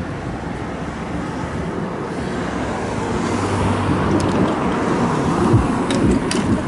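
Road traffic passing at a level crossing, a steady rush of vehicles that grows a little louder about halfway through, with a few light clicks near the end.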